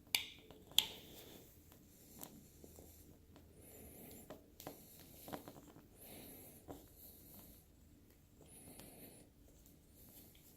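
Faint sounds of a small screwdriver working the screws of a Victor Exhibition phonograph reproducer. Two sharp metal clicks come right at the start, then scattered light ticks and soft scraping.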